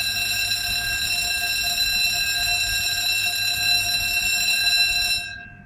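Level crossing audible warning alarm sounding a steady electronic tone as the barriers lower to warn of an approaching train, cutting off abruptly about five seconds in.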